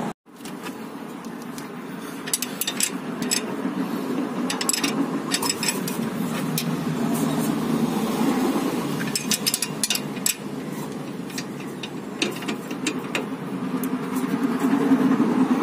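Steel spanners clicking and clinking against the nuts of a car's stabilizer link as they are worked by hand, in irregular clusters, over a steady low hum.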